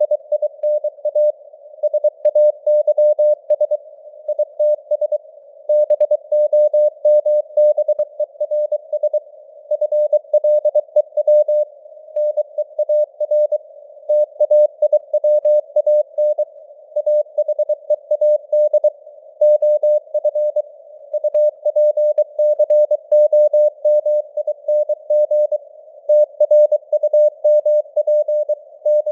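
Morse code (CW) sent at 23 words per minute: a single mid-pitched beep keyed on and off in quick dots and dashes, grouped into letters and words, over a narrow band of simulated radio static.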